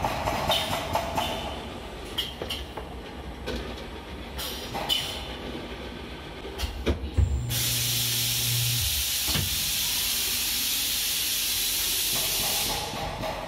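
Four-head liquid filling machine running: scattered clicks and knocks from the bottle conveyor and stops, then a brief low hum as the filling cycle starts, and a steady hiss lasting about five seconds while the nozzles fill the bottles.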